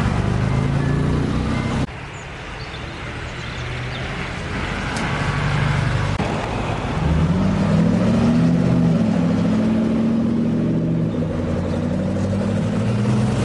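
Car engine running. The sound changes abruptly about two seconds in, then grows louder, and the engine's pitch rises a little around the middle and holds.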